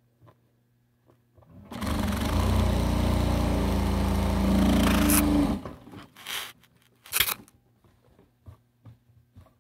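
Sewing machine stitching a seam through fabric scraps: it starts about two seconds in, runs steadily for about four seconds and stops abruptly. A few rustles and one sharp click follow.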